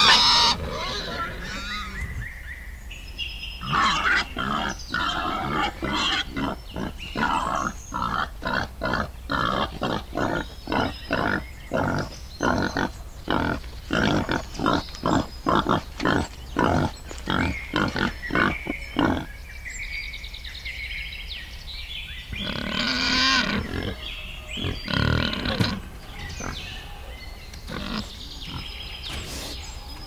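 Wild boar piglets calling in a long run of short calls, about two a second, while they play-fight; after a brief lull come two louder calls.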